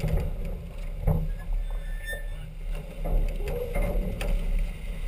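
Farr 40 racing yacht under sail: a steady low rush of wind and water along the hull, broken by a few sharp knocks and snaps from the rigging and the flapping spinnaker as it is handled.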